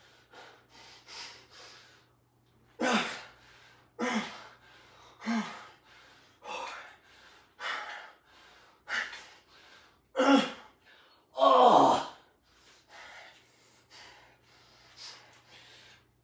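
A man's forceful, strained breaths during a set of barbell upright rows, one sharp exhale about every second with each rep. The longest and loudest, a drawn-out straining exhale, comes about three-quarters of the way through.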